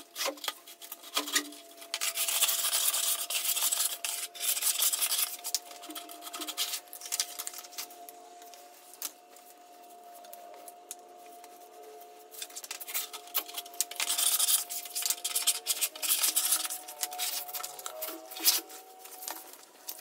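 Carpenter's hand plane (randa) being pushed along the edge of a board in repeated rasping strokes, shaving it flush. The strokes come thick and loud a couple of seconds in and again about fourteen seconds in, with lighter scraping between.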